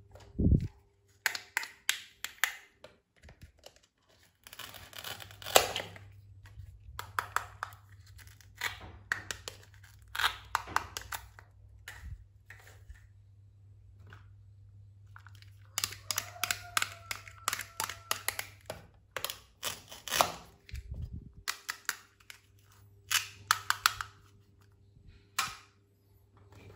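Hard plastic toy kitchen pieces being picked up, knocked together and set down: a long run of light plastic clacks and taps in irregular clusters, with tearing sounds as velcro-joined toy fruit is cut apart with a plastic toy knife.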